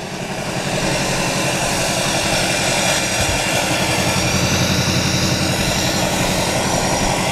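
2004 Duramax LLY 6.6-litre turbo-diesel V8 idling through a 5-inch straight exhaust, a steady low diesel rumble with turbo hiss, swelling over the first second and then holding level.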